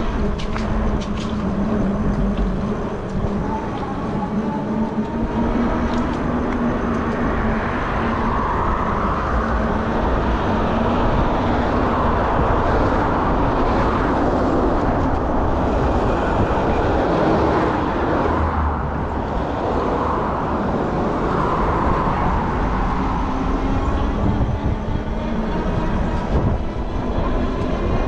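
Steady ride noise from an electric fat-tyre folding bike under way: wind rushing over the microphone and the tyres rolling on pavement, with a faint whine that slowly rises and falls.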